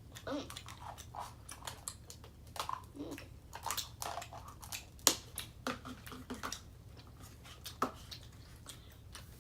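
Someone chewing candy close to the microphone, with scattered sharp clicks and rustles.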